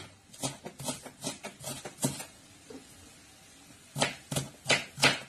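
Knife chopping diced onion on a cutting board: a quick run of sharp chops for about two seconds, a pause, then four more chops near the end.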